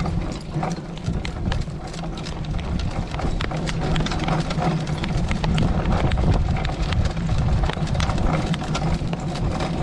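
Tandem pair of horses drawing a light carriage across grass: irregular hoofbeats and rattles of the carriage and harness over a steady low rumble of the wheels.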